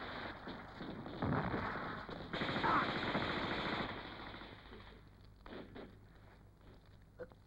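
Rapid automatic gunfire, a film soundtrack's machine-gun and rifle fire, loud and dense for the first few seconds, then thinning out to a few scattered shots.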